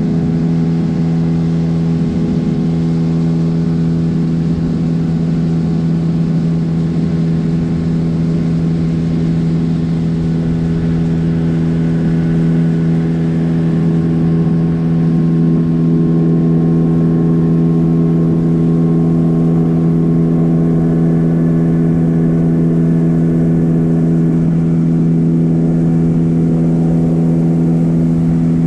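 Gladiator 9.9 hp outboard motor running steadily at one speed, with the boat underway. It gets a little louder about halfway through.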